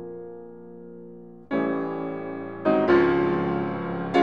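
Background piano music: sustained chords, soft at first, then louder with new chords struck about one and a half seconds in and again near three seconds.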